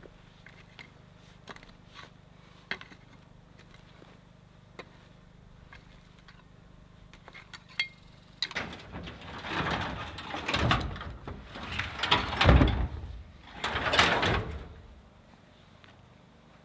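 A few faint taps, then a run of loud scraping and dragging sounds over dirt and wood chips in four or five swells of about a second each, ending a couple of seconds before the end.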